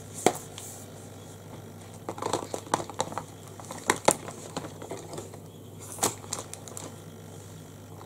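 Makeup tools and products being handled on a table: scattered sharp clicks and crinkling rustles, a quick run of them a couple of seconds in and single louder clicks near the middle and later.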